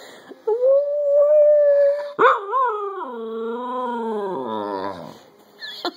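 A person holds a steady howling note. Then an English cocker spaniel breaks in with a loud howl that wavers and slides down in pitch before fading out about three seconds later.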